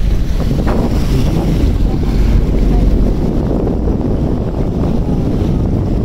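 Wind buffeting the microphone over a steady low rumble and rush of water from a passenger ferry under way.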